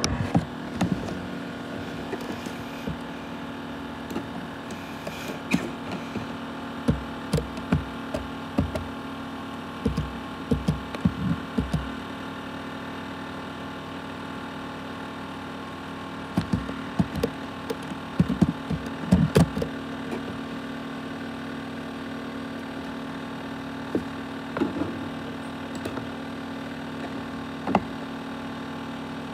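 ASUS X543UA laptop running with a steady hum made of several fixed tones, from its cooling fan and drive. Irregular clicks and knocks come in clusters over the first twenty seconds and again near the end.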